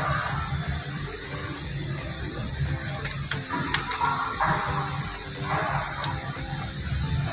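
A steady hiss over a low, even machine hum, with a few light metallic clicks of wrench work on the engine's rocker arm mounting bolts about halfway through.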